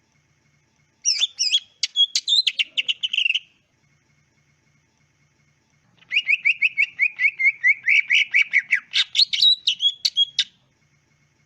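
Green leafbird (cucak ijo) singing two phrases of rapid, varied chirping notes. The first is short, about a second in. The second is longer and starts midway: a fast run of repeated lower notes that climbs to higher, sharper notes near the end.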